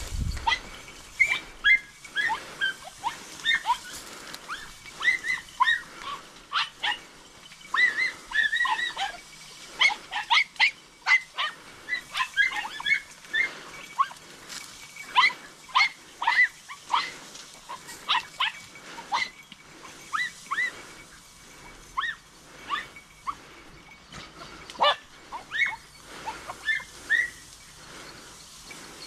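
Podenco hounds yelping many times over in short, high cries that come in irregular runs. This is the cry hounds give when they are working a rabbit through thick cover.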